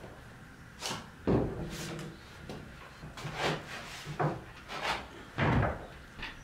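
Irregular knocks and thumps of wood on wood from a wooden ladder and loft boards, about ten in all. The two loudest, about a second in and near the end, have a short hollow ring.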